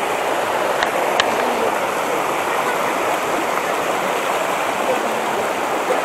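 Steady rushing of a fast mountain stream running over rocks, close by, with a couple of faint ticks about a second in.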